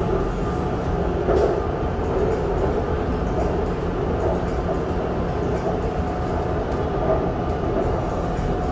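BTS Skytrain electric train running: a steady rumble with a faint steady whine and a light knock about a second and a half in.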